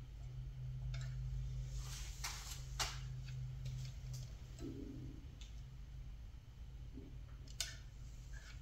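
A few scattered light clicks and knocks, with a duller knock about halfway through, over a steady low hum.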